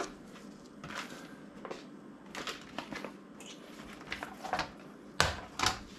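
Sheets of heat-transfer vinyl being handled and laid flat on a table: scattered crinkling and rustling, with two sharper crackles about five seconds in.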